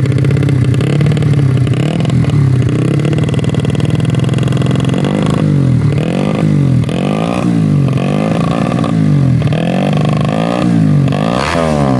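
Roadrace-tuned 130cc four-stroke motorcycle engine running at a steady idle. About five seconds in it starts a run of short throttle blips, each revving up and dropping back, a little more than one a second.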